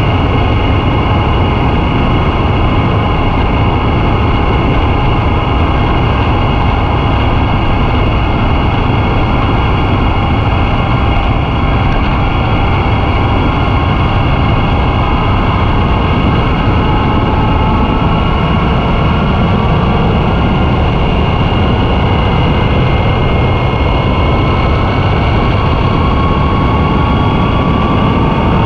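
Yamaha FJ-09 motorcycle cruising at road speed: wind buffeting the on-bike camera's microphone in a steady low rumble, over the whine of its three-cylinder engine, which rises slowly in pitch in the second half.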